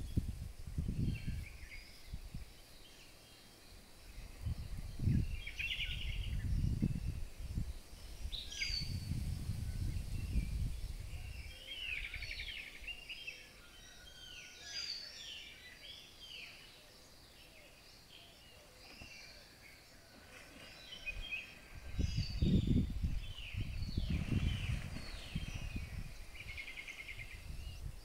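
Wild birds calling and singing: many short sweeping chirps and trills, busiest in the second half, over a faint steady hiss. Several bursts of low rumbling noise come and go, the loudest near the end.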